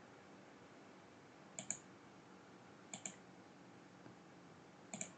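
Computer mouse button clicked three times, each a quick double tick of press and release, over a near-silent room.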